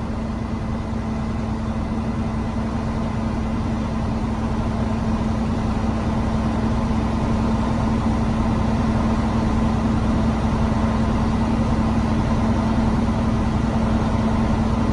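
Heavy truck's diesel engine running steadily at a raised idle of about 1200 rpm, heard from inside the cab, growing slightly louder over the stretch. The engine is driving the air compressor to build air brake pressure toward 90 psi.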